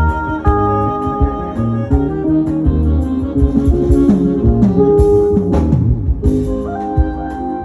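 A live band playing, with held horn and keyboard notes over bass guitar and a drum kit keeping a steady beat.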